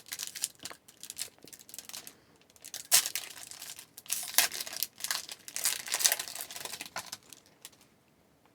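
Hockey card pack wrapper being torn open and crinkled by hand, a run of short crackling bursts that stops about a second before the end.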